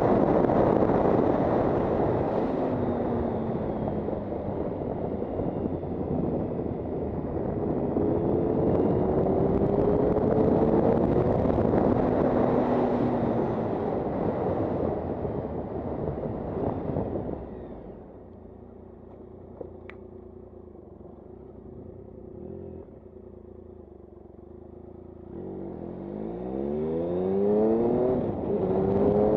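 Triumph Sprint ST 1050's three-cylinder engine running at road speed under heavy wind rush on the microphone, its pitch gliding up and down. About two-thirds of the way through the wind noise drops away abruptly, leaving the engine running lower and steady, then near the end it revs up with a steeply rising pitch as the bike accelerates.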